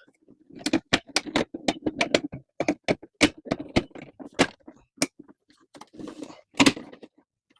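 Hard plastic parts of a Tor the Shuttlezord toy clicking and clacking as it is transformed into warrior mode: a quick, irregular run of sharp clicks, with a short scraping sound about six seconds in.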